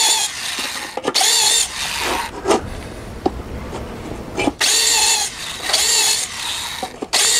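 Corded electric hand drill with a universal (step) bit enlarging holes in a metal enclosure panel, run in repeated short bursts. Its motor whine wavers in pitch as the bit cuts, with rougher grinding between the bursts.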